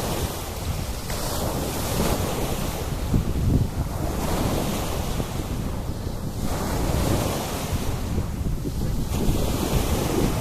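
Sea waves washing onto the beach, the surf swelling every couple of seconds, with wind buffeting the microphone in a steady low rumble.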